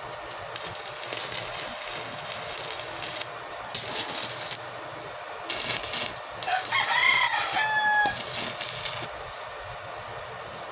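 A welding arc sizzling and crackling in four bursts, the first about three seconds long and the others shorter, with pauses between. A rooster crows once during the last burst.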